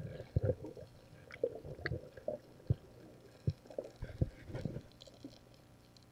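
Underwater handling noise picked up through a diver's camera housing: irregular muffled knocks and bumps, with a few faint clicks in between.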